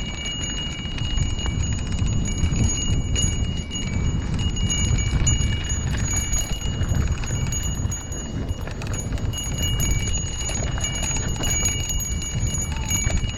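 A small bell ringing over and over, a steady high jingle, over a constant low rumble of wind and movement.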